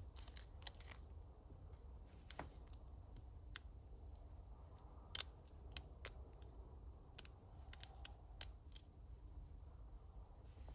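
Faint, irregular small metallic clicks and scrapes of a gem hook pick working the pins inside an ASEC 50mm long-shackle padlock, with one sharper click about five seconds in.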